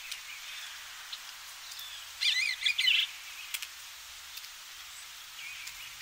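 Bluebird singing over a steady field-recording hiss. Soft notes come at the start and near the end, with a louder short phrase of quick rising-and-falling notes about two seconds in, lasting about a second.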